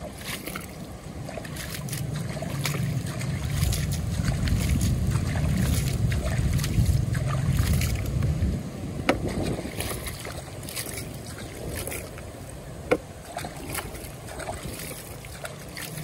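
Water splashing and sloshing in a plastic toy dump truck's bed as it is rinsed and scrubbed by hand. A low rumble runs through the first half, and a couple of sharp knocks come later.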